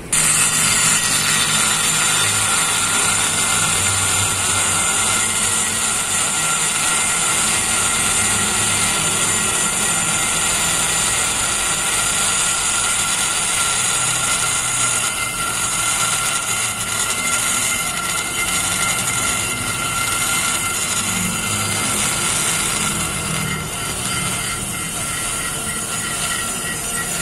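Straight die grinder running steadily with a burr cutting into the aluminium port of a Suzuki GSX 150 cylinder head, porting it: a continuous high-pitched whine over a hiss.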